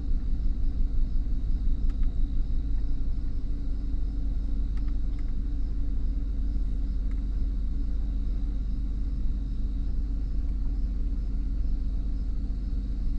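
Chevy Silverado 1500's 4.8 L V8 idling during an injector cut-out test for a misfire, with single cylinders being shut off in turn. The idle pulses unevenly for the first few seconds, then runs steadier.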